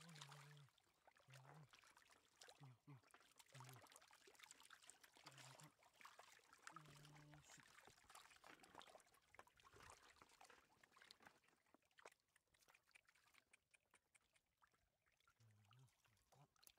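Faint splashing and trickling of shallow stream water stirred by hands catching catfish, with irregular small splashes throughout.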